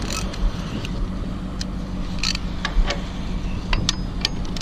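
Cat 225DLC excavator's diesel engine running steadily at low revs while its stick is brought down onto the bucket, with a scatter of sharp metal clinks from the pins and linkage.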